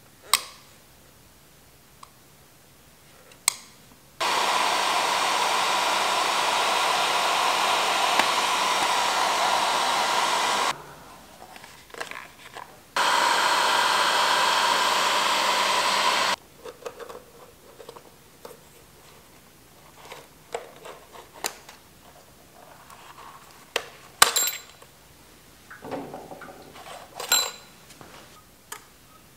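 Bauer heat gun running with a steady blowing whir, heating an old rubber motorcycle fork boot to soften it for removal. It runs for about six seconds, stops for about two, then runs about three seconds more. A few sharp clicks come before it, and light clicks and knocks of hand work follow.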